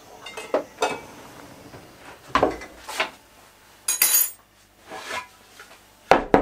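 Objects being handled: a string of knocks and clatters, a bright metallic jingle about four seconds in, and two sharp knocks near the end.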